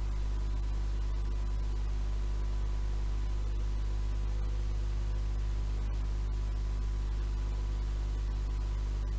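Steady mains hum with its overtones and tape hiss from a reel-to-reel tape playing back a blank stretch between spoken passages, with a thin steady tone above the hum.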